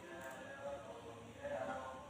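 Faint background music with a singing voice.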